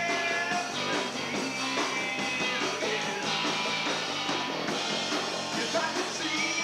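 Small rock band playing live, with electric guitar, bass, drums and a singing voice, picked up by a camcorder's microphone.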